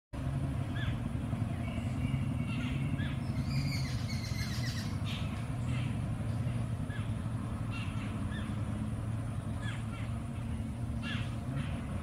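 Birds chirping, with short calls repeating every second or so and a busier burst of high chirps in the first few seconds, over a steady low hum.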